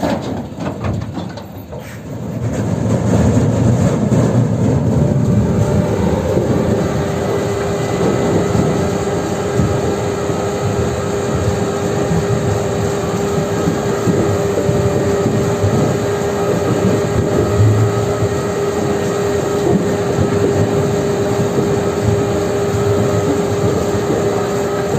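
Heavy diesel machinery engine working hard. It rises to a steady loud drone about two seconds in, and a steady whine joins it a few seconds later.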